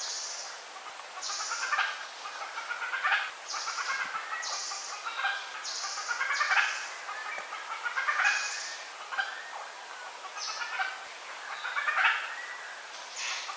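Birds calling over and over: short high buzzy notes and a lower chattering call that comes back about every second or so.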